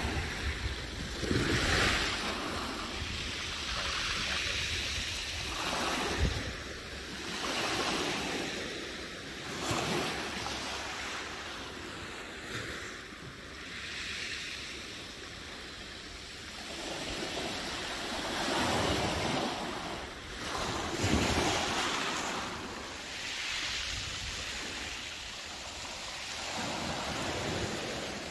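Sea waves washing onto the shore, the surf hiss swelling and fading every few seconds, with wind rumbling on the microphone.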